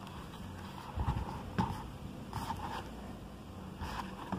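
Pages of a hardcover book being leafed through by hand: paper rustling, with a few soft, irregular taps and bumps from handling the book.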